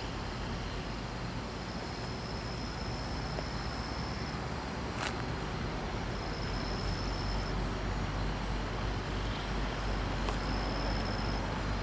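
Low rumble of an approaching CSX diesel locomotive in the distance, growing slowly louder toward the end.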